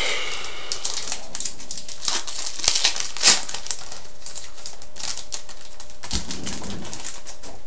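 Upper Deck Black Diamond hockey trading cards handled and flipped through by hand: a run of dry rustles and sharp card-edge clicks, loudest about three seconds in.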